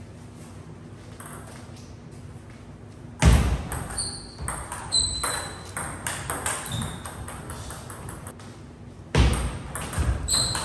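Table tennis rally: the celluloid ball clicking sharply off paddles and table in quick succession, starting about three seconds in and again near the end. Each rally opens with a louder hit, and brief high squeaks of shoes on the wooden floor come between the clicks.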